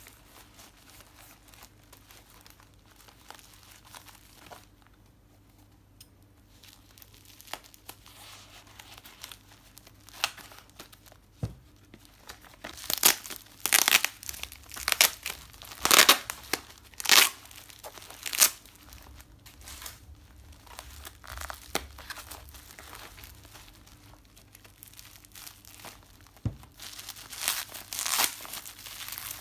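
Plastic packaging being crinkled and torn open: soft rustling at first, then a run of loud sharp crackles about halfway through, and more near the end.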